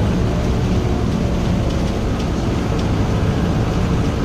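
Toyota Coaster BB43 minibus's Euro II diesel engine running while the bus is under way, heard from inside the cabin beside the driver as a steady low drone.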